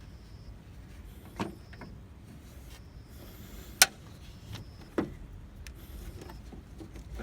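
A few separate clicks and knocks from hand tools at work in a car's engine bay during a drive-belt change. The sharpest is about four seconds in.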